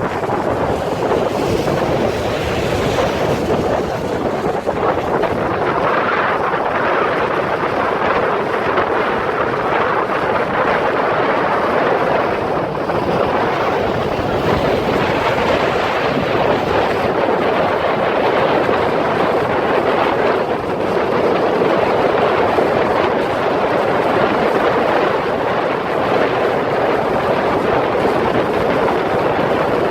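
Steady rushing noise of a boat under way, with wind blowing on the microphone.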